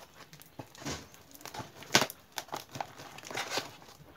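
Plastic parcel wrapping and packing tape crinkling and tearing as the parcel is pulled open by hand, in irregular snatches with the sharpest one about two seconds in.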